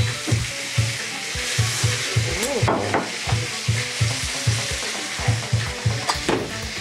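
Stir-frying in a hot wok: steady sizzling as a spatula stirs and tosses shredded pancake and bean sprouts in a little remaining sauce. Under it runs a regular low thumping, about three beats a second.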